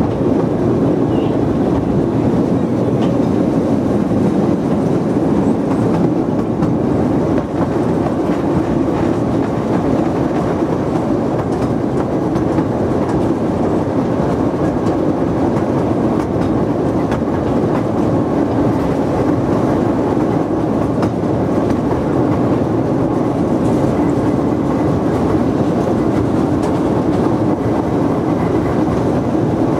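Steam train running steadily, heard from an open carriage: a constant rumble of wheels on the rails with occasional light clicks over the rail joints.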